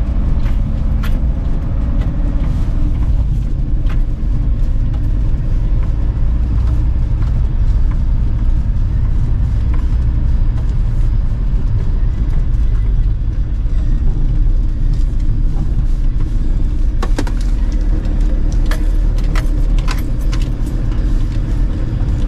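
VW T4 camper van driving along a rough lane, heard from inside the cab: a steady low engine and road drone. Several sharp clicks and rattles come in the latter part.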